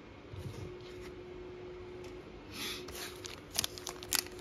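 Quiet handling of trading cards and a foil-wrapped card pack, the pack's wrapper rustling once about halfway and crackling several times near the end. A faint steady hum lies underneath.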